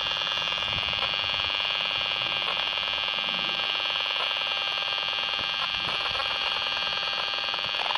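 Acousticom 2 RF detector's audio output buzzing steadily, turning the pulsed wireless transmissions of a smart electricity meter into sound. It is an unbroken buzz with many even tones, strongest high up.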